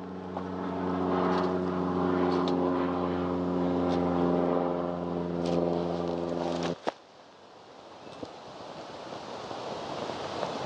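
A motor's steady drone with several even tones, cutting off abruptly about seven seconds in; after that only a faint rushing noise remains.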